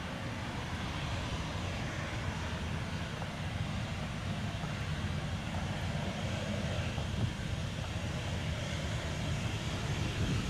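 Boeing 737-800's CFM56-7B jet engines running at taxi thrust: a steady low rumble under a broad hiss, growing slightly louder toward the end as the jet comes closer.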